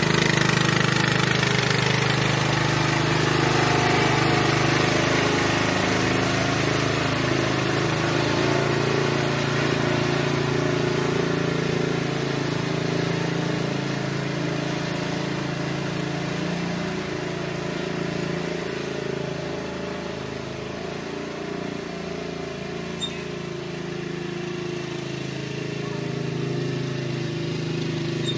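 Riding lawn mower engine running steadily, growing slowly fainter as the mower moves off across the lawn and a little louder again near the end.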